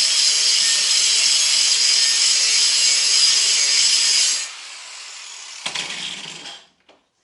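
Power grinder grinding the plasma-cut inner edge of a steel chain sprocket: a loud, steady, high hiss that cuts off about four and a half seconds in. A quieter sound and a short scrape follow before it goes quiet.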